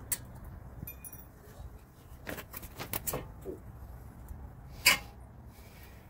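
A few sharp clicks and light metallic clinks from tools and brake parts being handled at a car's front wheel, one of them ringing briefly about a second in and the loudest near five seconds. A low steady rumble lies underneath.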